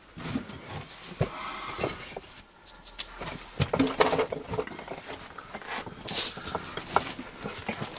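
Irregular scuffing, clinking and knocking of loose bricks and rubble shifting under someone moving over them, with rustles between the knocks. The loudest knocks come about four seconds in.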